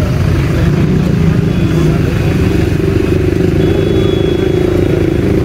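An engine idling steadily at one speed, a low even hum with no revving.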